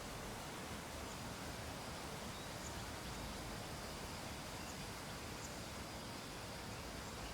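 Steady low hiss of background noise, with a faint high steady tone and a few faint, brief high ticks.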